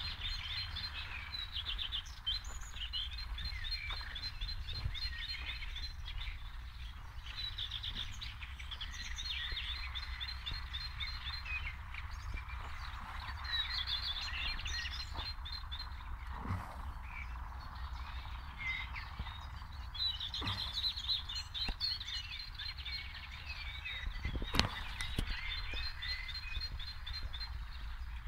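Small songbirds chirping and trilling almost continuously, over a steady low hum, with two short, louder sounds in the second half.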